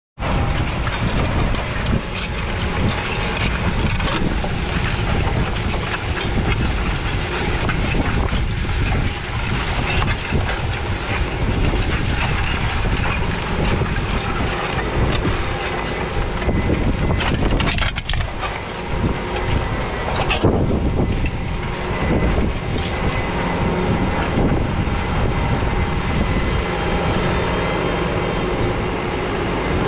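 The 6.7-litre six-cylinder diesel of a McCormick X7.624 tractor running steadily while pulling a five-furrow reversible plough in work, with the rush and rattle of soil turning over the plough bodies and wind on the microphone.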